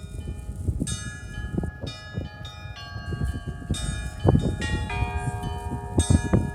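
Russian Orthodox church bells of the Kizhi belfry being rung: several bells of different pitch struck one after another, their tones overlapping and ringing on. Heavier, deeper strikes stand out about four seconds and six seconds in.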